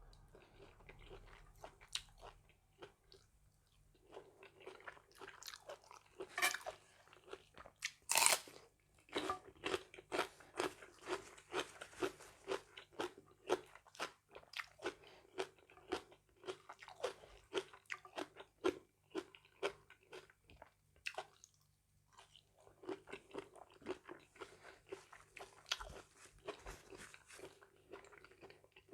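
Close-miked chewing of a spicy mixed-seafood salad: rapid wet chewing with repeated crunches. The loudest crunches come about six and eight seconds in, and there are two short pauses in the chewing.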